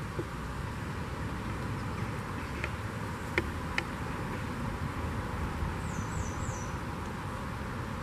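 Steady rush of shallow river water with a low rumble underneath. A few sharp clicks come about three and a half seconds in, and three quick, high, falling chirps a couple of seconds later.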